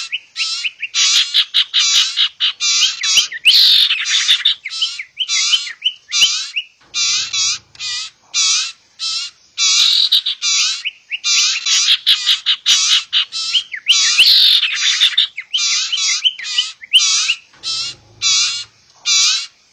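Lure recording of sirtu birds, adult and juvenile calls mixed together: a rapid, almost unbroken run of harsh, high-pitched chattering squawks with very short gaps between them.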